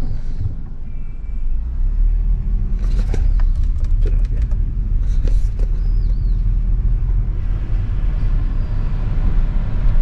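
In-cabin engine and road rumble of a Toyota Voxy ZRR80W's 2.0-litre four-cylinder while driving with the air conditioner being switched on. The rumble grows about two seconds in, and a cluster of clicks follows about three to five seconds in: the compressor engaging with a click that takes some power from the engine.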